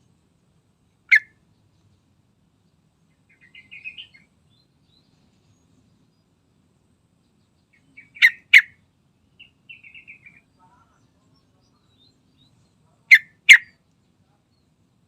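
Yellow-vented bulbul calling: loud, sharp single notes, once about a second in and then in two quick pairs later on. Between them come softer, short chattering phrases.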